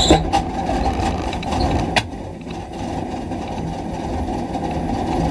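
Carburetted boat engine running at idle just after catching, coming back to life after sitting. A sharp click about two seconds in, after which it runs a little quieter.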